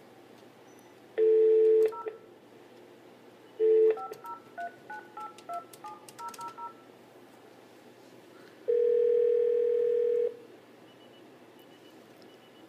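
Telephone call being placed: a brief dial tone, then about a dozen quick keypad tones as the number is dialed, then the ringback tone ringing once for about two seconds.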